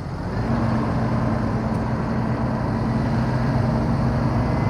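Farm tractor's diesel engine revving up about half a second in, then running steadily under load as it takes up the strain on a tow rope.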